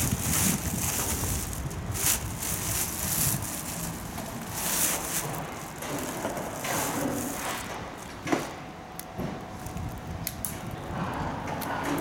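Clear plastic wrapping crinkling and rustling as a fan's wire grille and plastic blade are handled and unwrapped, with a sharp knock about eight seconds in and small clicks of the parts after it. A low rumble of wind on the microphone runs underneath.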